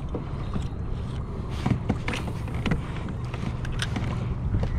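Kayak riding on choppy water: water sloshing against the plastic hull and wind on the microphone, with a few light knocks of gear on the boat.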